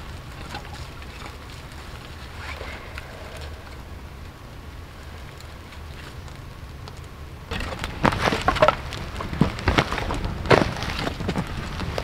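Wood campfire crackling and popping: faint at first, then much louder, with dense sharp pops, from about seven and a half seconds in as the fire has caught and burns up.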